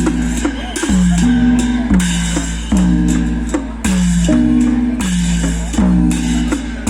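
Music: strokes about once a second, each sliding down in pitch and then holding, over a steady low hum, with a plucked-string sound. Likely a klong luang drum being played.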